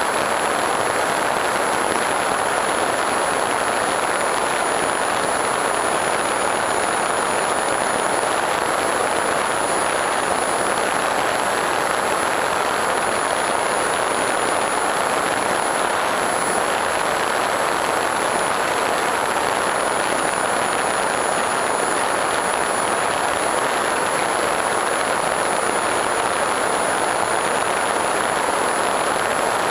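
Small electric RC plane in steady cruise, heard from its onboard camera: a constant rush of propeller and wind noise. A thin high whine holds steady above it throughout.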